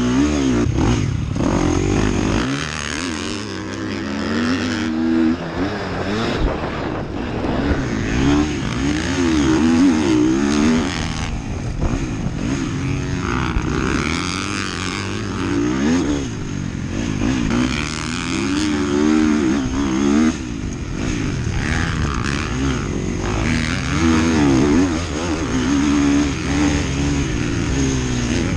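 Motocross dirt bike engine heard close up from the rider's helmet camera, revving up and falling back again and again as the rider accelerates, shifts and brakes around the track.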